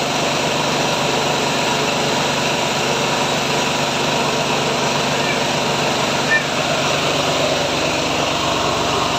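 Mahkota KD550HM mini rice milling machine running steadily under its engine, a constant loud mechanical drone with one brief knock about six seconds in.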